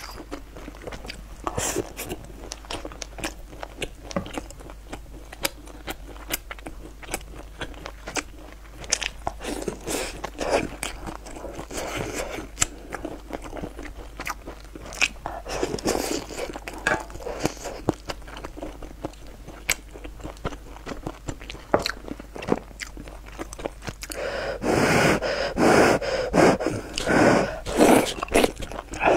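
Close-miked eating: chewing and crunching, with many sharp clicks. Near the end comes a louder stretch of slurping as she sucks noodles in from the bowl.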